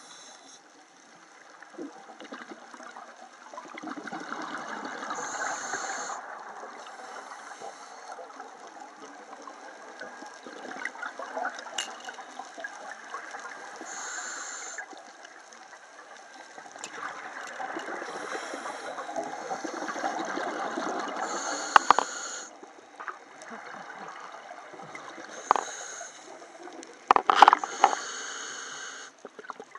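Scuba diver breathing through a regulator underwater: a short high hiss on each inhale alternating with a long gurgling rush of exhaled bubbles, every few seconds. A few sharp clicks near the end.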